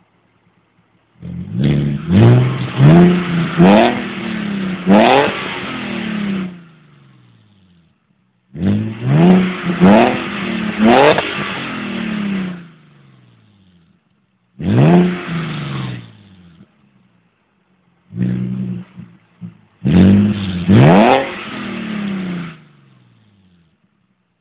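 Audi A4 V6 engine through a Magnaflow exhaust, revved in four bursts of quick throttle blips, the pitch climbing sharply on each blip and sinking back as the revs fall.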